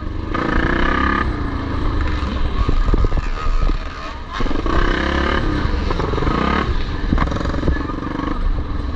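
Vintage motocross motorcycles running and revving on the track, with a voice over a loudspeaker at times.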